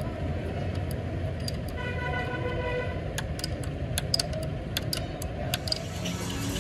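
Spanner clinking against the release-lever bolts of a Fiat 640 tractor's clutch pressure plate, a string of sharp metal clicks, over a steady low rumble of vehicle engines. A horn toots for about a second, around two seconds in.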